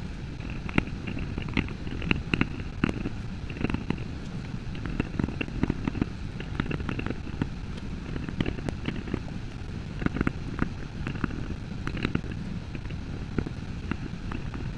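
Leather stamping tool struck repeatedly with a mallet, tooling a strap of leather: a quick, irregular run of sharp taps, several a second, over a low steady hum.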